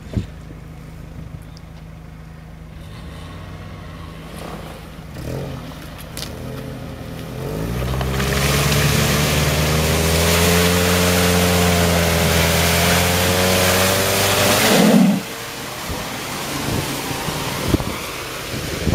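Off-road SUV engine idling steadily, then revved hard under load for about seven seconds as the wheels spin in deep mud, with a loud rush of tyre and mud spray over the engine note. The revving cuts off suddenly about fifteen seconds in.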